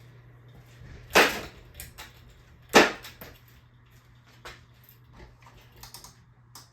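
Harbor Breeze Armory 42-inch ceiling fan running on high with a steady low motor hum. Two loud, short bursts of noise come about a second and a half apart, with a few faint clicks.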